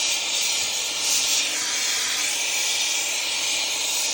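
Steady, loud hiss of gas rushing out under pressure, with no change in strength.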